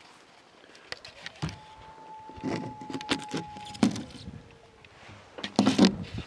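Close clinks, knocks and rustling of gear being handled, with a steady high tone held for about two seconds in the middle and a loud burst of rustling and knocking near the end.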